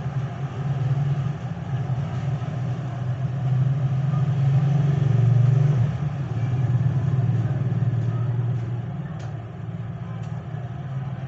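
A motor vehicle engine running with a steady low hum that grows louder to a peak about five seconds in, then fades. A few faint ticks come near the end.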